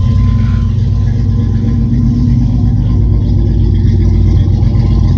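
A Chevy Astro van's 4.3-litre Vortec V6 idling steadily just after start-up, heard through a home-built catless dual exhaust with a Flowmaster 40 series dual-inlet, dual-outlet muffler. The exhaust note is low and deep.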